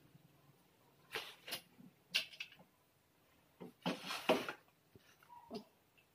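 Metal table-frame parts and a flat panel being handled on cardboard: a few irregular scrapes and rustles with light knocks, the longest about four seconds in.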